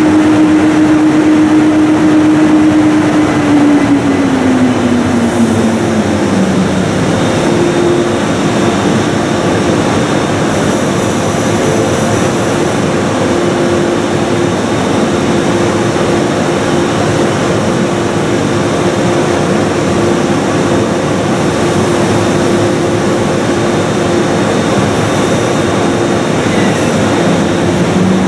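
ÖBB Class 1116 Taurus electric locomotive and its double-deck train standing at the platform with the electrics and cooling fans running: a steady whine over a hum. About four seconds in, the whine slides down in pitch over a couple of seconds, then a different steady tone settles in.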